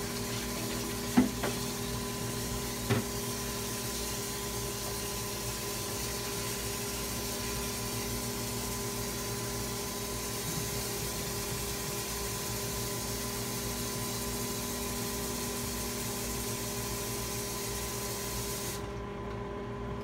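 Hot water running from a kitchen tap into a plastic basin as a steady rush, shut off abruptly near the end. A steady hum runs underneath, and there are two light knocks in the first three seconds.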